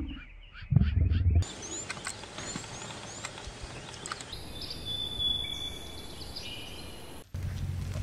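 Bush ambience with wild birds chirping and calling, including a steady high whistle about halfway through. It is framed by a short, loud low-pitched sound about a second in and, after a sudden cut near the end, a steady louder low sound.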